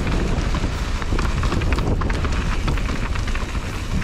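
Rough rolling noise of a ride down a dirt trail: heavy wind rumble on the microphone over a steady crackle of tyres crunching over gravel and loose ground, with no clear engine note.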